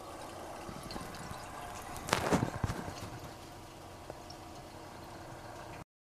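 Sulfur dioxide refrigerant boiling out of the oil in a GE CK26 Monitor Top's compressor dome as it is vented to a disposal hose: a steady faint bubbling with scattered ticks and a louder gurgling spell about two seconds in.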